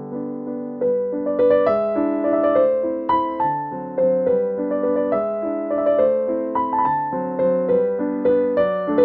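Background piano music: a melody of struck notes moving over lower held chords.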